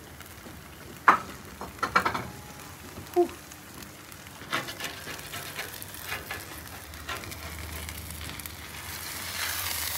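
Shaved-ribeye cheesesteak sandwiches sizzling on a flat-top griddle, with a few sharp clicks in the first few seconds. The sizzle grows louder near the end as a spatula slides under a sandwich.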